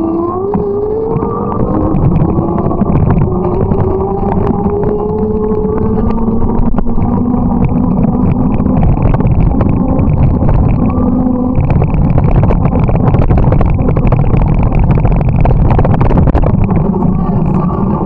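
Heavy rumbling wind noise on the microphone while riding, with a motor's whine rising steadily in pitch over the first six seconds, then a lower steady tone for a few seconds.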